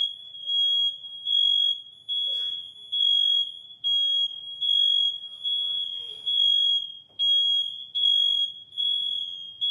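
Smoke alarm going off in loud, repeated high-pitched beeps. It was set off by smoke from cake sparklers lit indoors.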